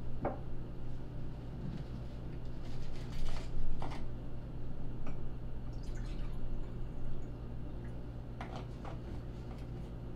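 Short clicks, taps and drips at a dinner table as a sauce bottle is tipped and shaken over a plate and a fork is handled, the loudest a pair of taps about three and a half seconds in, over a steady low hum.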